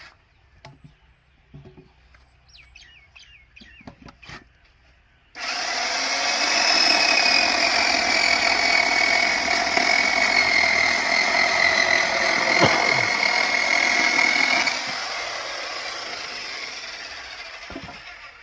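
IBELL EC16-18 electric chainsaw starting suddenly about five seconds in and running at full speed with a steady high whine and chain noise; after about ten seconds the level drops and the sound tapers off toward the end.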